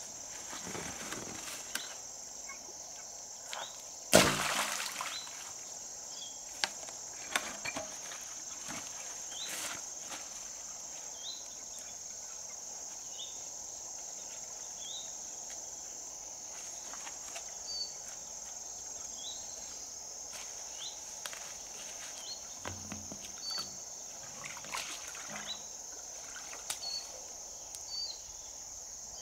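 Steady high insect drone with short chirps scattered through it. A single sudden loud thump about four seconds in, and a few lighter clicks and knocks.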